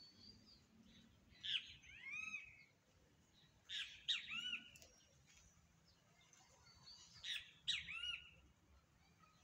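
A songbird singing the same short phrase of chirps and slurred whistles three times, about every three seconds.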